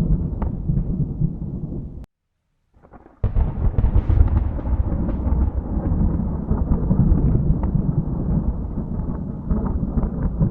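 Thunder rolling and rumbling. It cuts out abruptly about two seconds in, leaving near silence for about a second, then a sharp new crack of thunder breaks in and rolls on.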